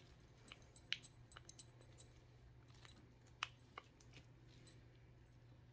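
Faint scattered light clicks and taps, several close together and then two more after a pause: a stir stick against a mixing cup as mica powder is worked into epoxy resin. A faint steady low hum runs underneath.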